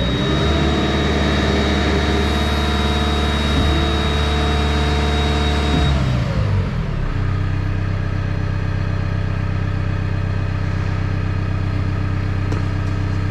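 Diesel engine of the wheeled construction machine revved up and held under load while its hydraulics raise the lift ramps, with a steady high whine over it. About six seconds in, the engine drops back to a steady idle.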